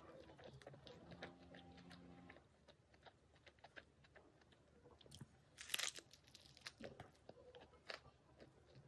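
Faint crinkling and soft crunching of a tortilla chicken lettuce wrap being handled in the hands, with one louder, crisp crunch about six seconds in.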